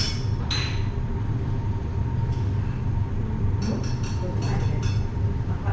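Steady low mechanical rumble under a kitchen, with a sharp metallic clink of kitchenware about half a second in and a few lighter clinks and clatters near the middle.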